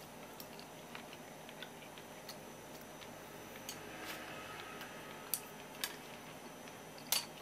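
Someone chewing a mouthful of raw conger-eel sashimi: faint scattered mouth clicks and smacks, with a few sharper ones in the second half and the loudest near the end.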